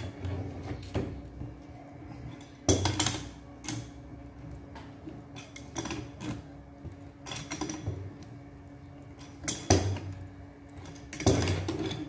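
A few sharp metal clanks and clinks from a vice grip working a threaded metal adapter tight onto an airgun's valve. The loudest knocks come about three seconds in and again near ten and eleven seconds.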